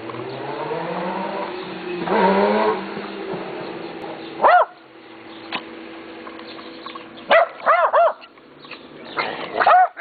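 Small terrier-type dog barking in short, sharp barks: one, then a quick run of three, then two or three more near the end. Before them, a rising pitched drone over the first few seconds.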